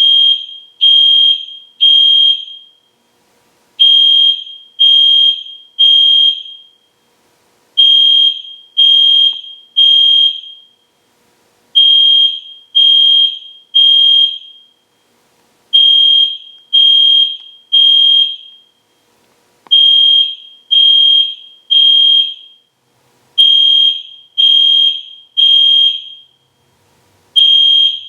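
EST Genesis fire alarm horn sounding a high-pitched beep in groups of three, each group followed by a short pause and repeating about every four seconds: the temporal-three evacuation pattern.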